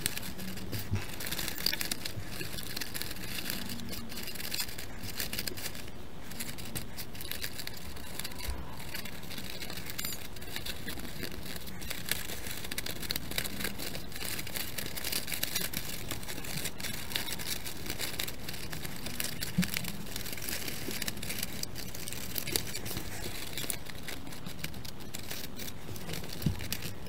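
Construction-paper strips rustling and crinkling as they are threaded and pushed down around a woven paper basket, with small scattered taps and scrapes of paper.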